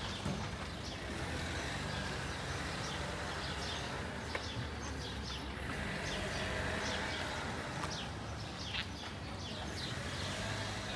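Birds chirping again and again in short, high, falling notes, busiest in the middle stretch, over a steady hum of city street background.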